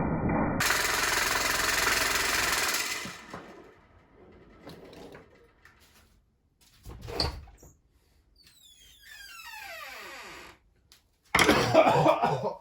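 Brittle plastic fan blades smashing against a screwdriver pushed into the running fan: a loud, rapid clatter that stops about three seconds in. Later comes a single knock, then a falling whine as the fan motor winds down, and a second loud burst of clatter near the end.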